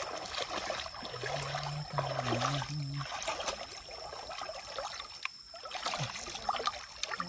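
Shallow creek water trickling and splashing around wading legs and a woven bamboo scoop basket pushed down through it. A low voice sounds briefly, about a second in.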